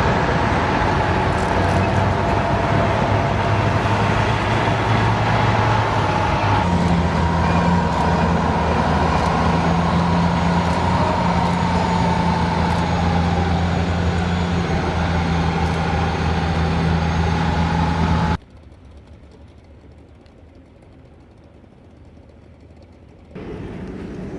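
Heavy vehicle engine running steadily under a high whine, shifting to a new pitch about a quarter of the way in. It cuts off abruptly about three quarters of the way through, leaving a much quieter stretch before a different, moderately loud background starts near the end.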